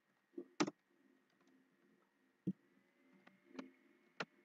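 Computer keyboard keystrokes and mouse clicks: about six separate sharp clicks, the loudest pair less than a second in.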